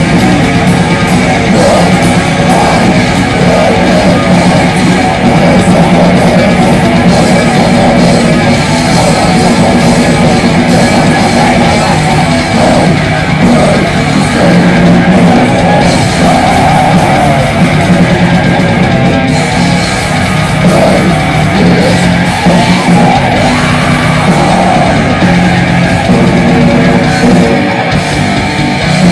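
Live heavy metal band playing loud: distorted electric guitar, bass guitar and drum kit through a PA.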